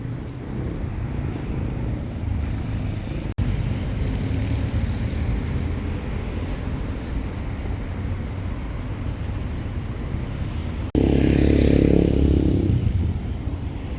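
City road traffic: a steady low rumble of cars passing. Near the end a louder vehicle goes by close for about two seconds, after a brief cut-out in the sound.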